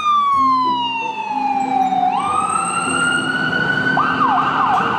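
Ambulance siren in a long wail that falls in pitch for about two seconds, jumps up and climbs slowly, then switches to a fast yelp about four seconds in, cutting off suddenly at the end.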